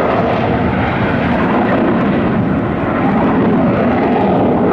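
Single turbojet engine of an Aermacchi MB-339 jet trainer flying a low aerobatic tumbling manoeuvre: loud, steady jet noise.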